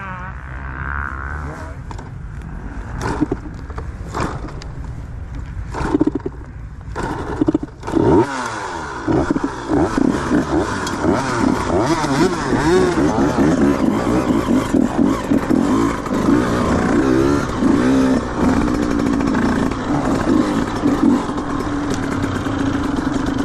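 Dirt bike engine revving up and down over and over, the revs wavering continually and holding steadier near the end. Several knocks and clatters come in the first seven seconds or so, before the engine note takes over.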